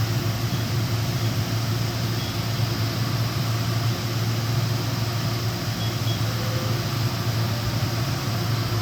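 DMG Mori NVX7000/50 CNC vertical machining center running, a steady, even hum.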